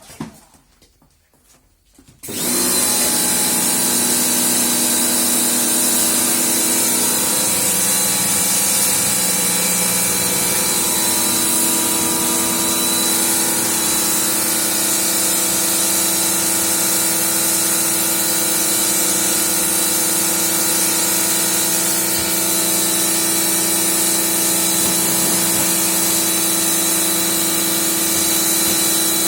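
A pressure washer switching on about two seconds in, then running steadily: the motor and pump hum under a strong hiss of the water jet. Around ten seconds in, the motor's hum steps up slightly in pitch.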